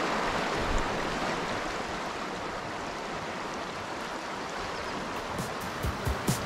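The Salmon River rushing steadily over shallow rocky riffles. Near the end, music with a beat begins to come in.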